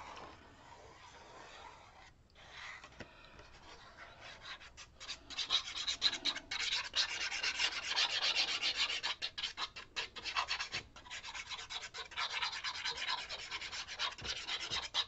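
Paper being rubbed with quick, scratchy back-and-forth strokes by hand. It starts faintly, then grows steady and dense about four or five seconds in.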